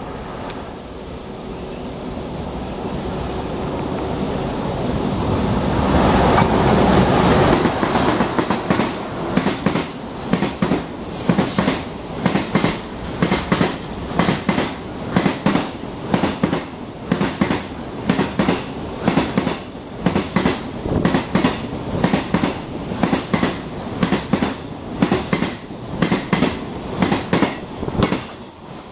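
EH200 electric locomotive hauling a freight train, growing steadily louder as it approaches and passes at speed about six seconds in. A long rake of container wagons follows, its wheels clacking over rail joints in a steady rhythm of about one clatter a second.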